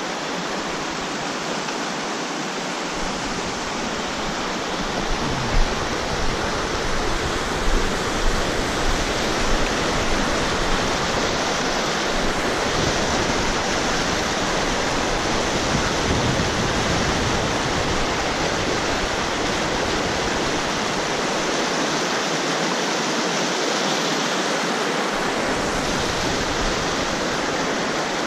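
Steady, loud rush of flowing water, with a low rumble coming and going underneath.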